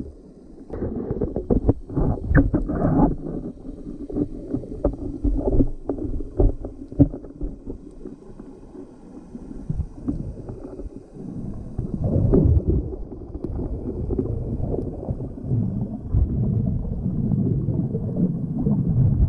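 Muffled underwater water noise from a microphone below the surface, with clusters of knocks and rushing water about one to three seconds in and again around twelve seconds.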